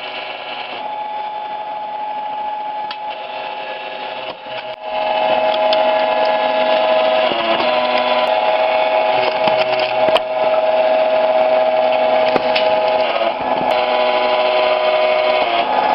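Log-splitting machine running with a steady motor whine, with a few sharp cracks of wood splitting. It gets louder about five seconds in, and its pitch dips briefly a few times.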